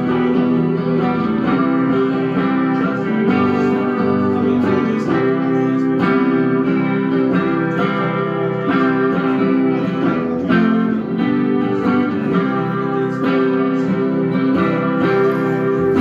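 Semi-hollow-body electric guitar played live, chords in a steady rhythm with no vocals, as an instrumental intro.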